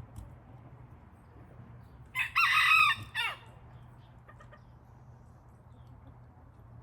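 A chicken gives one loud call, held for about a second and ending in a short falling note, a couple of seconds in.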